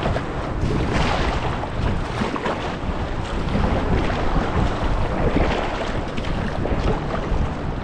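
Wind buffeting the microphone, with sea water lapping around a fishing kayak: a steady rushing noise.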